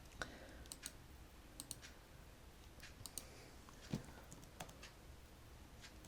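Faint, scattered clicks of a computer mouse and keyboard, some in quick pairs, with one louder click about four seconds in.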